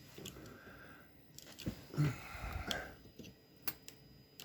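Faint handling noise as a measuring tool, calipers, is fitted into a slot cut in wood: a few small clicks and rustles, the sharpest click about three and a half seconds in.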